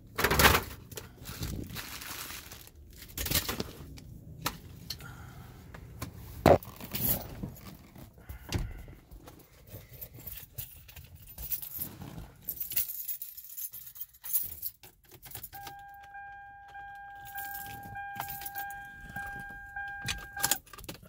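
Keys jangling, with irregular clicks, knocks and rattles. About 15 seconds in, a steady electronic tone starts and runs on with a few short breaks.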